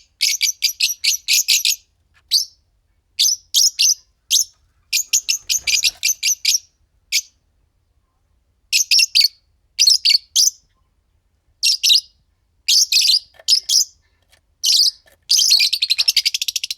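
A pair of Fischer's lovebirds chirping: shrill, high chirps in quick clusters with short pauses, ending in a fast chattering run.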